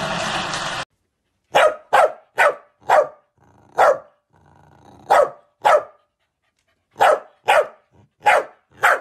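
A corgi barking at a rubber chicken toy: about a dozen short, sharp barks, singly and in quick pairs, with short pauses between.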